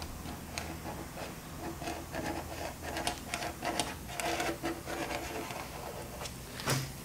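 A marking pin scraping along the edge of a fiberglass body panel to scribe a cut line, in many short scratchy, squeaking strokes over a low steady hum.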